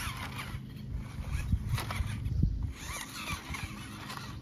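Small RC scale pickup truck's electric motor and drivetrain running as it crawls over grass and dirt, a steady low hum with scattered clicks and rustles.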